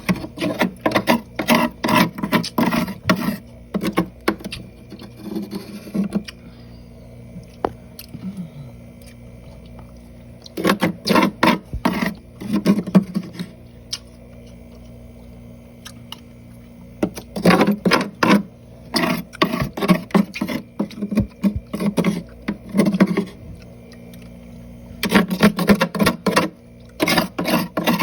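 Close-miked chewing of soft freezer frost: rapid crunches and mouth smacks in bursts of a few seconds, with pauses between.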